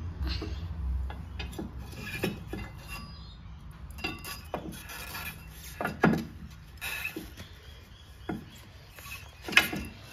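Irregular metallic clinks and knocks from work on a mini excavator's new rubber track as it is forced onto the sprocket, the loudest about six seconds in and another near the end.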